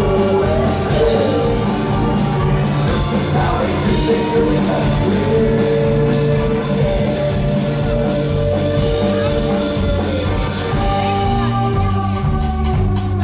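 Alt-country band playing live through a club PA, with drums, banjo and guitar and singing. A long note is held for several seconds in the middle, and another, higher one near the end.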